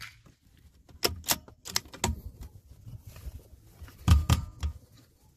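Sharp mechanical clicks and clacks of a CZ 452 bolt-action .22 rimfire rifle being cycled to eject the spent case and chamber the next round, then a cluster of louder knocks about four seconds in as the rifle is handled.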